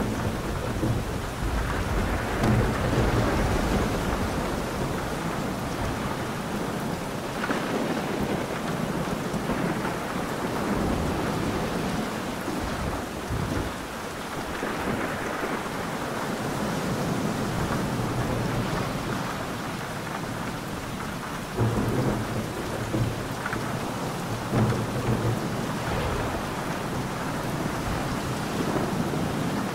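Steady rain falling through a thunderstorm, with rolling thunder rumbling near the start and again in a sudden, louder surge about two-thirds of the way through.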